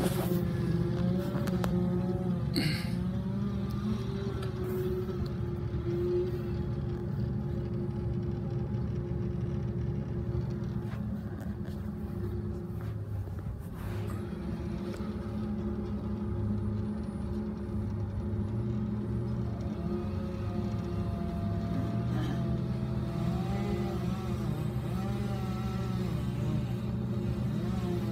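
Bucket truck's engine running steadily: a low, even rumble with a faint wavering whine above it.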